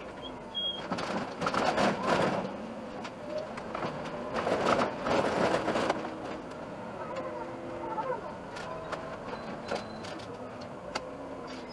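Iveco Urbanway city bus on the move: a steady running noise of engine and tyres, with two louder noisy swells, about a second in and again around five seconds in.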